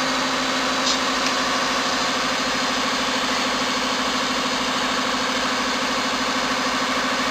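Hydraulic power unit of a semi-automatic rubber press running with a steady, even hum, with a couple of faint ticks about a second in.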